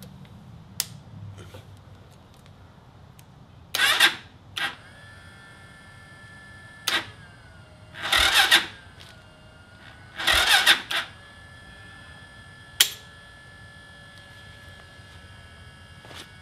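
Electric starter cranking a 200cc Lifan single-cylinder engine in several short bursts, each under a second, with sharp clicks between them. The engine never catches, because this engine won't start. A faint steady high whine carries on underneath after the first burst.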